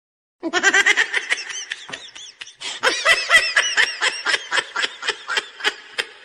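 High-pitched laughter: a long run of quick ha-ha pulses that starts about half a second in and goes on without a break.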